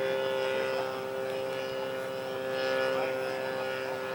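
Steady drone of the 36cc gas engine of a radio-controlled model Pawnee in flight while towing a flag, its pitch holding level.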